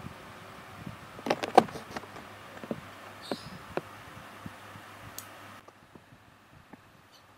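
Scattered clicks and light knocks from a hand working a TPA3116D2 amplifier board's volume knob and its cables, a quick cluster about a second and a half in and then single ones. A faint steady low hum runs underneath.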